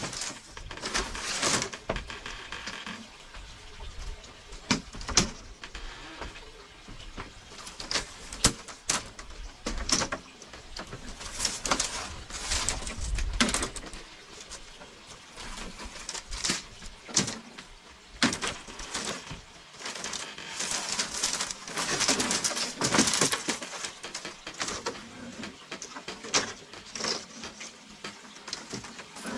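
Irregular clicks, knocks and scraping of hands-on work, with a few louder sharp knocks scattered through.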